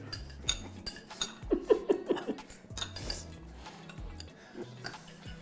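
Metal forks clinking against china dinner plates as people eat pasta, a scatter of sharp clicks through the whole stretch, over low background music.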